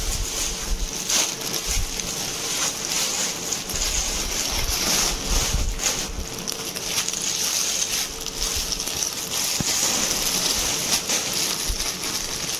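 Plastic courier mailer bags and polythene garment wrappers rustling and crinkling as they are handled and pulled open, with a faint steady hum underneath.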